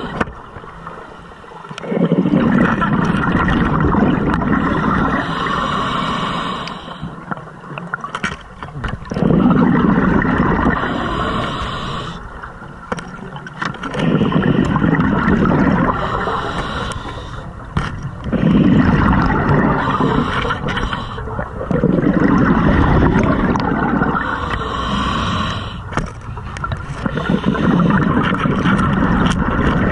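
Scuba diver breathing through a regulator underwater: a hiss on each inhale and a rumbling rush of exhaled bubbles on each exhale, about six breaths, one every four to five seconds.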